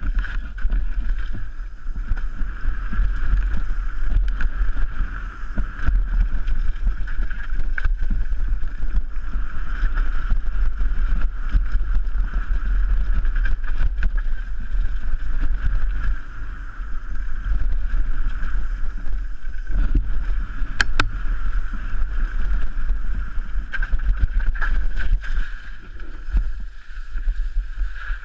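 Downhill mountain bike rattling and rumbling down a rocky trail, heard through a GoPro camera: tyres over loose stones, clattering chain and frame, and wind buffeting the microphone. There is a steady stream of small knocks, with a couple of sharp knocks about two-thirds of the way through.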